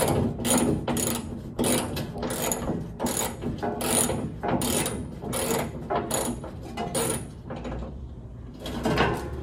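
Hand ratchet wrench clicking in quick back-and-forth strokes, about two a second, working loose crusty, corroded bolts under the rear of a Nissan D21 pickup. The strokes stop about seven and a half seconds in, and one more comes near the end.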